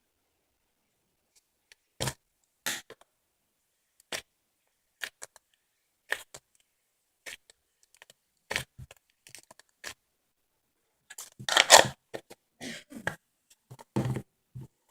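Slime being handled by hand: a string of short sticky clicks and crackles with pauses between, and a longer, louder squelching burst about three quarters of the way through.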